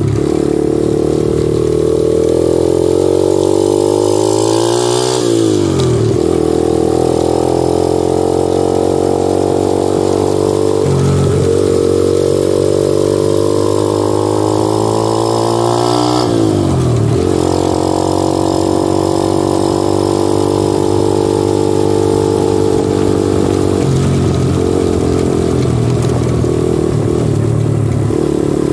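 125cc motorcycle engine running while being ridden. Its pitch climbs as it revs and then drops sharply about five seconds in and again about sixteen seconds in, with a smaller dip around eleven seconds.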